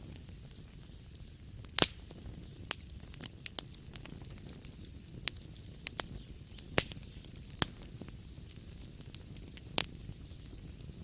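Wood fire crackling in a fireplace: a low steady rumble of flames with irregular sharp pops and snaps, the loudest about 2, 7 and 10 seconds in.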